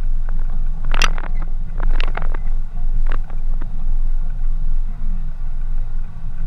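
A vehicle driving along a rough dirt track: a steady low rumble, with a cluster of knocks and scrapes between about one and three and a half seconds in.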